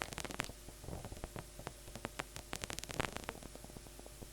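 Synthesized paper-crumpling effect from the Vital software synth, played by a Max for Live MIDI note generator: irregular crackling clicks over a low noise hiss, bunching into denser runs near the start and again about three seconds in.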